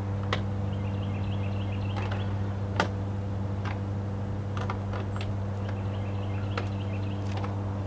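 Feet shifting and crunching on gravel, with a few sharp clicks, the sharpest about three seconds in, over a steady low hum. A faint high warble comes twice.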